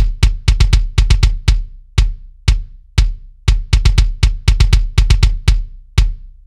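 Sampled kick drum playing a repeating, uneven pattern of about two to four hard hits a second, each with a deep thump and a bright beater click. It runs through an SSL-style bus compressor set to a 100 ms release.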